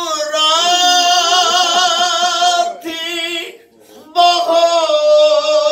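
A man chanting a mourning recitation into a microphone in long, wavering held notes. He pauses briefly for breath about three and a half seconds in, then starts the next long note.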